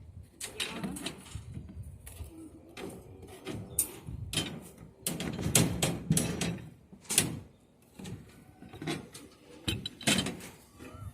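Irregular knocks, clanks and scrapes of construction materials being handled during roof formwork work. There are sharper hits about four, five, seven and ten seconds in.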